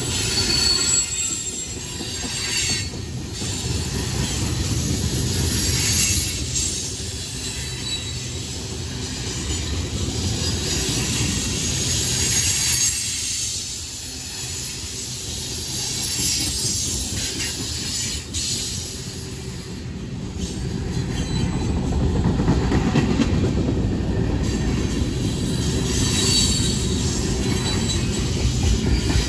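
Freight cars rolling past at close range: a steady rumble of steel wheels on the rails, with a high-pitched wheel squeal that comes and goes.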